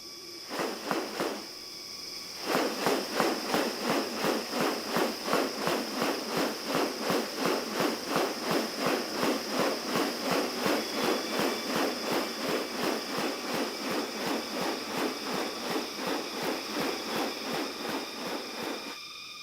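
Rainforest wildlife sounds: a steady high insect whine, and from about two and a half seconds in a fast, evenly repeated pulsing call, roughly two to three pulses a second, that stops shortly before the end.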